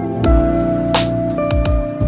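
Background music: an instrumental track with held notes over a bass line and a steady beat.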